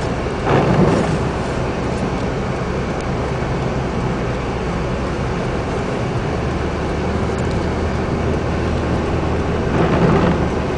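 Steady motor-vehicle noise on a road, a low engine hum under a wash of road noise. It swells louder briefly about half a second in and again near the end.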